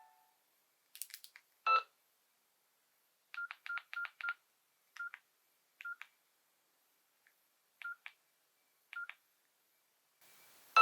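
Nokia 5500 mobile phone key beeps: short, single-pitch tones as its buttons are pressed to move through the menu. There is a quick run of five about three and a half seconds in, then single beeps a second or more apart.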